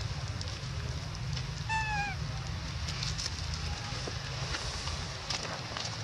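One short, high squeak from a young long-tailed macaque about two seconds in, falling slightly in pitch, over a steady low rumble and scattered soft rustling clicks.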